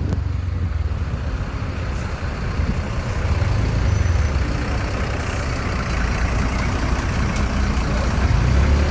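Diesel engine of a large bus running, a steady low rumble with road noise that swells slightly about halfway through.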